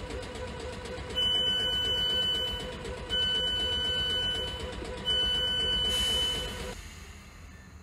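Door-closing warning on a South Western Railway suburban electric multiple unit standing at the platform: three long, evenly spaced beeps over the train's steady hum, the doors about to close before departure. The sound fades away near the end.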